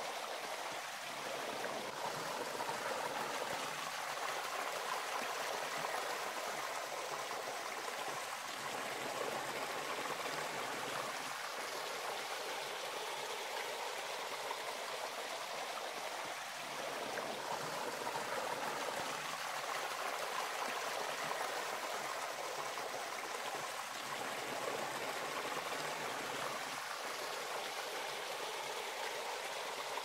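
Fast-flowing stream rushing over rocks: a steady, even rush of water.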